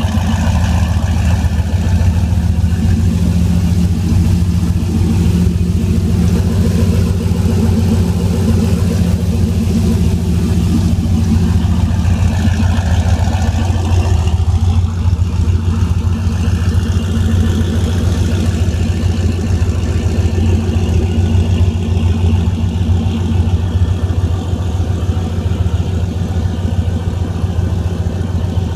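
A 6.0-litre LS-series V8, swapped into a 1998 Mustang GT, idling steadily with a low, pulsing exhaust note.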